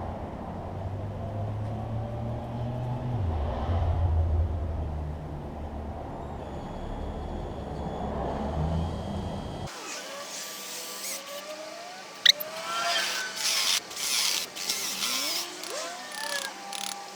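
Electric drill running under load as it bores into a set plaster-and-sand furnace lining, its low motor hum dipping in pitch about three seconds in. About ten seconds in the hum stops abruptly, leaving scattered clicks, one sharp click and short squeaky scraping sounds.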